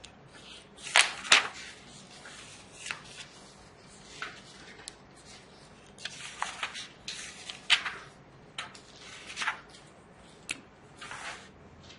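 Paper handling: textbook pages being turned and rustled, with short scratches of a marker pen on paper. It comes as a string of brief bursts, the longest around a second in and again near six and nine seconds.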